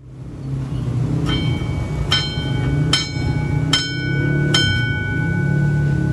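Level-crossing electric warning bell ringing: five sharp strikes about 0.8 s apart, each ringing on into the next, over a steady low rumble. It signals that the crossing is closing for an approaching rail vehicle.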